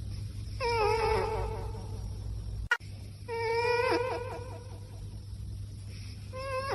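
A cat giving long, drawn-out meows with a wavering pitch: one about half a second in, another about three seconds in, and a third starting near the end. A single sharp click falls between the first two.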